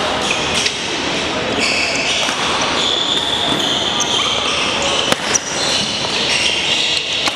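Echoing sports-hall ambience: badminton shoes squeaking on a wooden gym floor in short high-pitched chirps, over background voices, with one sharp smack about five seconds in.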